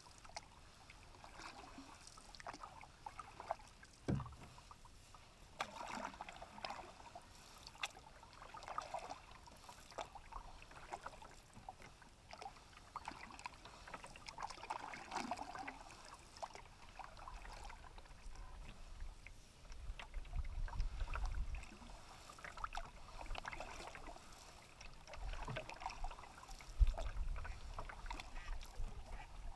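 Canoe being paddled: soft swishes of the paddle pulling through the water every few seconds. There is one sharp knock about four seconds in, and a low rumble of wind on the microphone in the second half.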